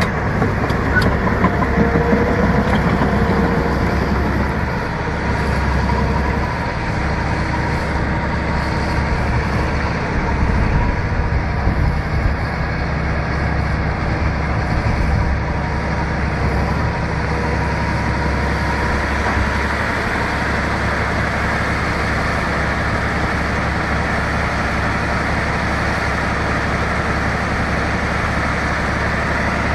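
Bulldozer's diesel engine running, with some rises and dips in level during the first half, then holding steady.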